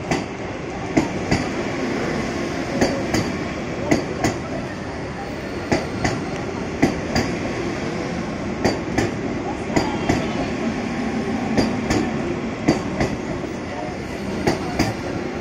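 Vande Bharat Express electric multiple unit coaches rolling slowly past along the platform: a steady rumble with sharp paired clicks of the wheels over rail joints, a pair every second or so.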